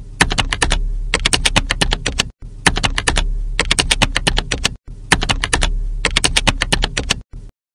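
Computer keyboard typing: quick runs of keystrokes over a low hum, in three stretches broken by sudden short gaps.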